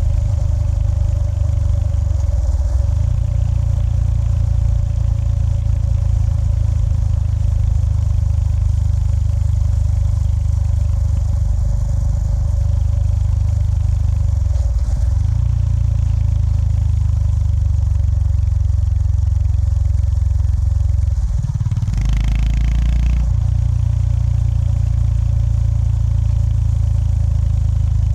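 Honda GB350S's air-cooled single-cylinder engine running under way, a steady low drone. The engine note shifts a few times, with a brief louder burst about three-quarters of the way through.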